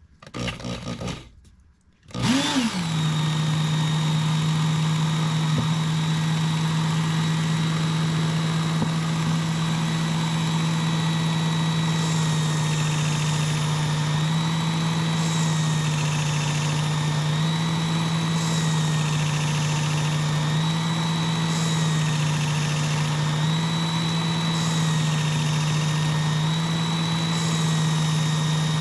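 Work Sharp powered belt knife sharpener fitted with a 6,000-grit belt, switched on about two seconds in: its motor spins up and then runs with a steady hum, shifting slightly in pitch every second or two.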